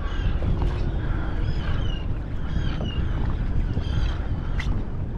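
A kayak under way on open salt water, with wind buffeting the microphone as a steady low rumble. Short high chirps recur irregularly, about every half second to a second.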